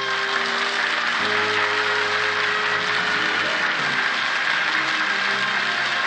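Studio audience applauding over orchestral closing music at the end of a radio play.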